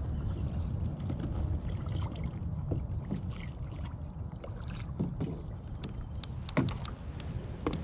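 Kayak paddles dipping and splashing in calm lake water, with small drips and water lapping at the hull, over a low steady rumble.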